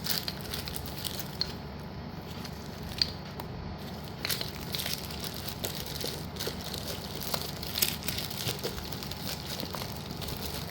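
Plastic packaging of slate pieces being handled, crinkling steadily with many small sharp clicks and crackles.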